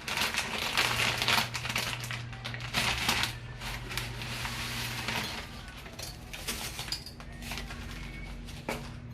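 Dry angel hair pasta being snapped by hand and dropped into the Instant Pot's inner pot: a run of crisp snaps, crackles and light clicks, thickest in the first few seconds, over a faint steady hum.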